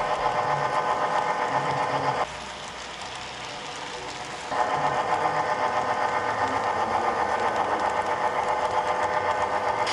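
HO-scale model train running with the camera riding close on it: a steady mechanical whir of small motor and gearing. The whir drops away for about two seconds a couple of seconds in, then comes back.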